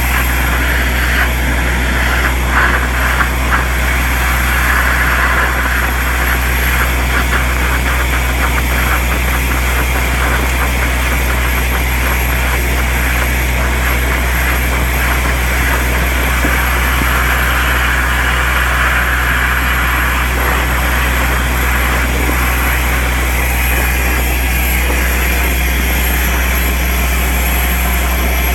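Compact soil-vacuum excavator running with a steady drone and a thin high whine while its suction pipe draws loose soil and grit out of a hole, the soil crackling and rattling through the pipe. The rattle thins out about two-thirds of the way through.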